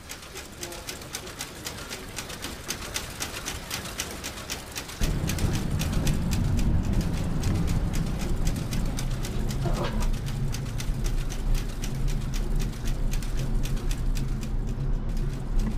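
Working cotton-mill machinery: a fast, even clatter, joined about five seconds in by a much louder low rumble.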